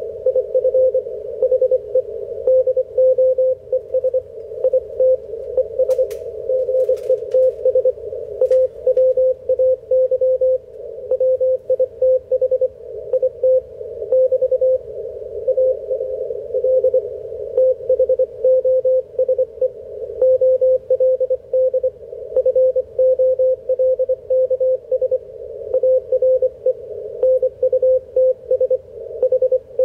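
Morse code (CW) received on an HF amateur-radio receiver: a single tone around 550 Hz keyed on and off in dots and dashes, over band hiss narrowed to a slot around the tone by the receiver's CW filter. A few sharp clicks come between about six and eight and a half seconds in.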